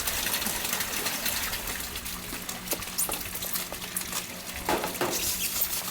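Shrimp sizzling and crackling as they cook in a hot pan, a steady hiss with many small pops.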